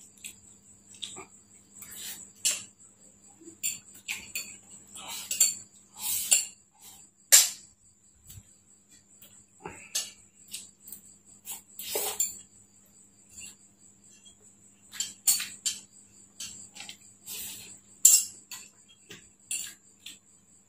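A metal spoon clinking and scraping against a glass bowl of rice while eating, in scattered sharp clicks. The loudest clicks come about seven, twelve and eighteen seconds in.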